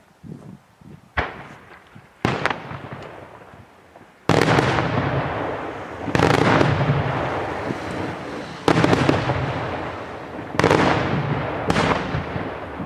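Daytime aerial fireworks bursting: a series of about seven sudden loud bangs, each trailing off in a long echoing rumble, louder from about four seconds in.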